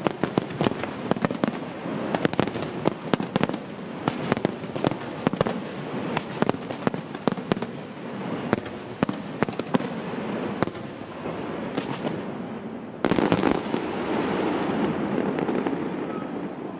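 Aerial fireworks display: sharp bangs from bursting shells come several a second over a continuous crackle, thinning out after about ten seconds. A tight cluster of bangs about thirteen seconds in is followed by a steady crackle that fades toward the end.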